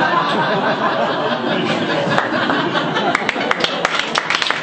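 Audience laughing. Clapping breaks out about halfway through and runs on as scattered applause.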